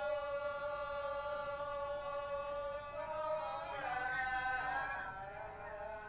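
Unaccompanied singing of a prayer chant in long held notes, the melody moving to new pitches about three seconds in.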